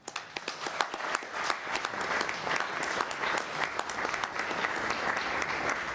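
Audience applauding, building up over about the first second and then holding steady.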